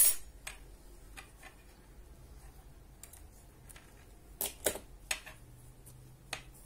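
Scissors snip shut on the yarn with one sharp click at the start. Scattered light clicks and taps follow as the knitting and the knitting needle are handled, with a sharper pair about four and a half seconds in.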